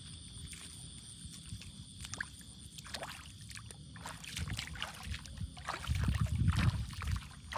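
Water sloshing and splashing, louder near the end, with insects chirring steadily behind.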